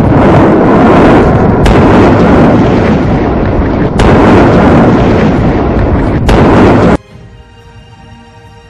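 La Palma's Cumbre Vieja volcano erupting: a continuous, very loud roar from the vent, broken by three sharp blast cracks about two seconds apart. The roar cuts off suddenly about seven seconds in, leaving soft music.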